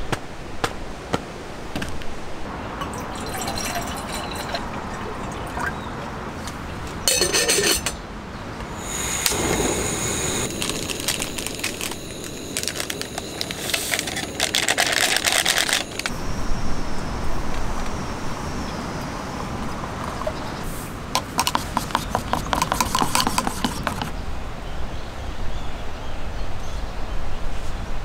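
Instant cup soup being made in a metal camping mug: a foil packet rustles as the powder is shaken in, with liquid pouring and light clinks against the mug.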